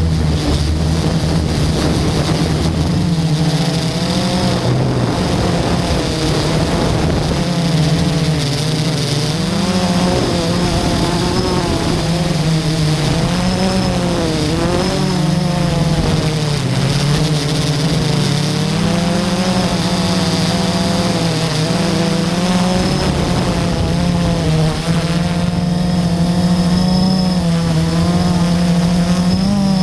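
FPV quadcopter's electric motors and propellers buzzing continuously, the pitch wavering up and down as the throttle changes.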